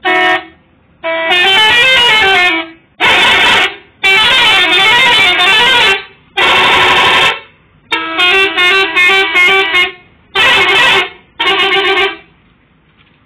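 Telolet musical bus horn, a multi-trumpet air horn, being tested. It sounds about eight loud blasts in a row, each playing a short tune of rising and falling notes, and a couple of blasts are chopped into quick stuttering pulses.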